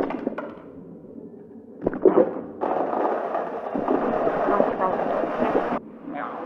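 A sharp knock about two seconds in, then a steady rushing rattle of dry cat kibble gushing out of an automatic pet feeder, cutting off suddenly about a second before the end.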